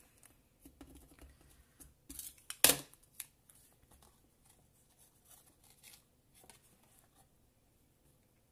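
Paper crafting at a work mat: light paper rustles and small taps, with one sharp click a little under three seconds in.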